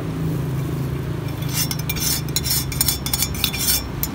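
Rapid metallic clinking from a stainless-steel pitcher as a drink is poured out of it into plastic cups. The clinks start about a second in and come thick for two or three seconds, over a steady low hum.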